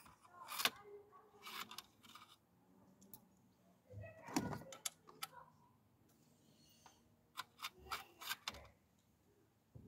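Scattered metal clicks and clinks of tools and parts being handled in a car's engine bay, with a louder clatter about four seconds in and a quick run of clicks near the end.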